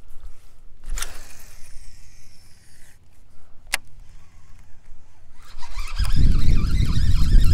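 Baitcasting fishing reel: a click, then a faint high whir that falls in pitch for about two seconds as the spool spins, and another click. Near the end, loud rumbling handling noise as the rod is swung up.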